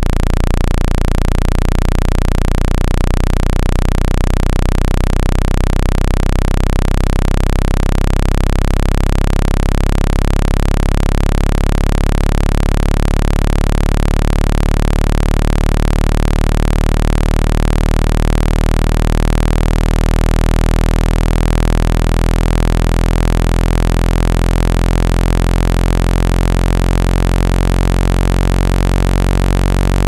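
Synthesized speaker-cleaning tone: a loud, steady, low-pitched buzz with many overtones over a hiss, meant to shake water and dust out of a phone speaker.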